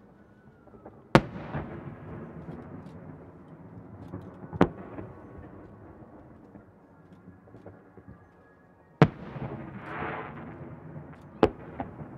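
Fireworks shells bursting, heard from a distance: four sharp bangs spread over the stretch, each followed by a long rumbling echo, with a smaller bang just after the last.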